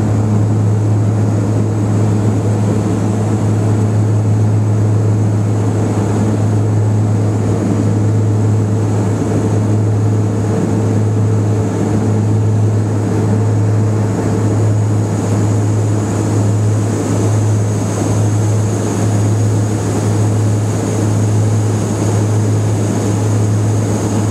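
Twin Garrett TPE331 turboprops of a BAe Jetstream 32 heard from inside the cabin: a loud, steady low propeller drone that beats slowly about once a second in the second half, with a thin high turbine whine over an even rush.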